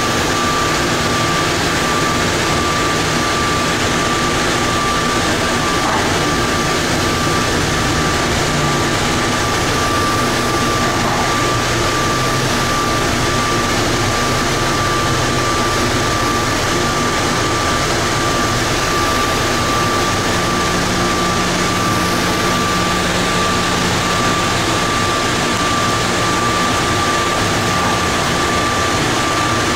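Automated people-mover train running through an underground tunnel, heard from inside the car. A steady roar on its rubber tyres, with a steady high-pitched whine over it.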